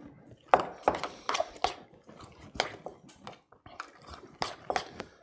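A metal spoon stirring a thick cheese filling in a glass bowl, clicking irregularly against the glass, about ten sharp clinks.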